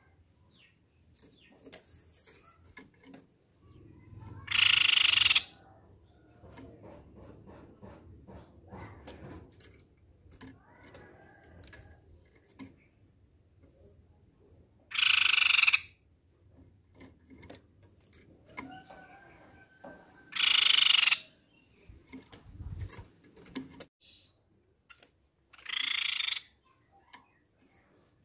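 Crescent-chested babbler (tepus pipi perak) giving four calls, each about a second long, with faint clicks of the bird moving about its cage between them.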